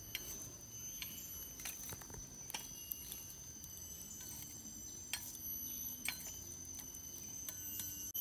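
Scattered sharp clicks and taps as metal tongs stir burning charcoal in a steel grill box. A steady high-pitched insect drone runs underneath.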